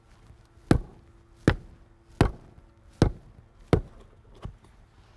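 A mallet striking a bluestone paver six times, about one blow every three-quarters of a second, the last blow fainter: knocking the slab down level into its stone-dust bed.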